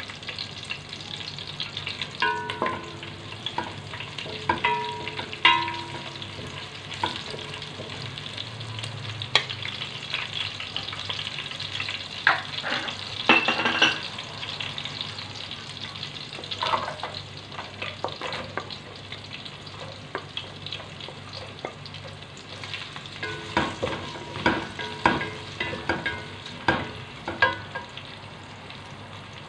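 Garlic, ginger and green chillies sizzling in hot oil in an aluminium pot. Diced carrots are stirred in with a wooden spoon, which scrapes and knocks against the pot in short clatters.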